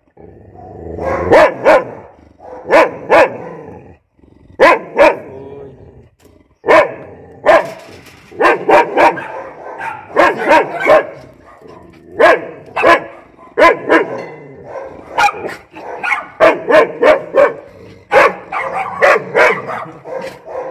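A dog barking over and over: short, sharp, loud barks, mostly in quick twos and threes, a cluster every second or so.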